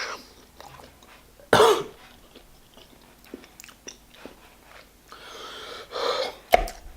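A man coughs once, sharply, about a second and a half in, while eating a burger doused in hot sauce; the cough comes from the heat of the sauce. Soft chewing clicks follow, then a longer breathy sound near the end.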